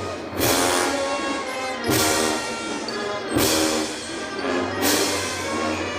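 Brass band playing a slow march: sustained brass chords under a drum-and-cymbal strike about every second and a half, each hit ringing out.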